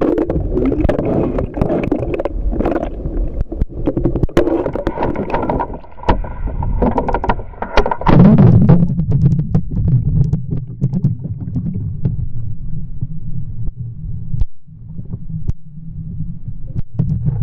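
Muffled water sloshing and rumbling heard through an underwater camera, with scattered sharp knocks and clicks. It grows loudest a little past the middle.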